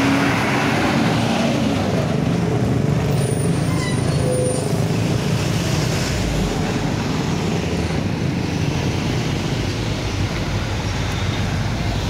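Heavy road traffic passing close: the engines of a bus, a tanker truck and motorbikes with tyre noise, a steady rumble.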